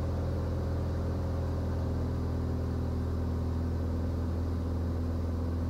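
Cirrus SR20's four-cylinder piston engine and propeller running in flight, a steady low drone.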